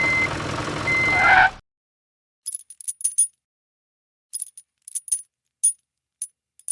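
A vehicle engine running with a reversing alarm beeping about once a second, cut off suddenly about a second and a half in. After a short silence come a scattering of light, high clicks and clinks.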